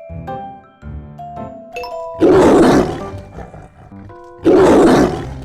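Tiger roaring twice, two loud roars under a second each about two seconds apart, over a background tune of short stepped notes.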